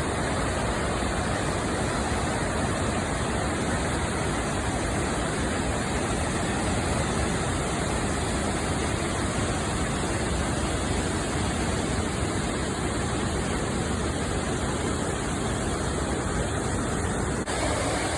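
Yaak Falls on the Yaak River: a steady rush of falling, churning water. The sound changes abruptly shortly before the end.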